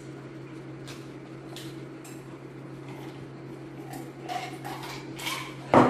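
A person drinking soda from a cup, with gulping sounds in the second half, then one short, loud knock near the end.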